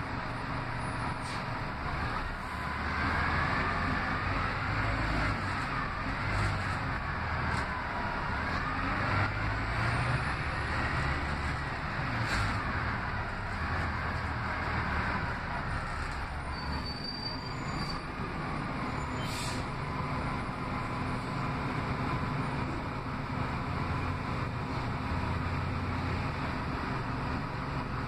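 Cabin sound of an Orion VII CNG city bus under way: steady engine and road noise, with a whine that rises and falls in pitch through the first half and two sharp clicks.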